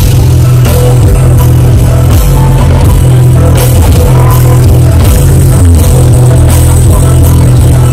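Very loud live concert music over a stage PA, with a heavy, steady bass beat.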